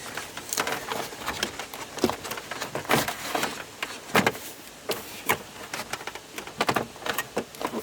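A dash cover knocking, clicking and scraping against the dashboard as it is worked into place, in irregular handling knocks with a few louder ones.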